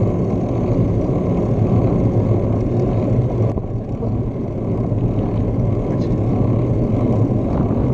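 Steady wind rumble on the microphone of a handlebar-mounted action camera on a moving bicycle, with road noise mixed in; it eases slightly about four seconds in.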